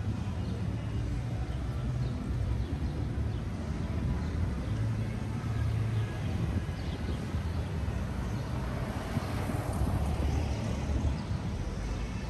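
Outdoor city street ambience: a steady low rumble with a wash of background noise that swells about two-thirds of the way through.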